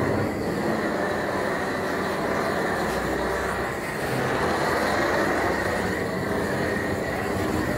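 Gas blowtorch flame burning steadily, a continuous even rushing noise.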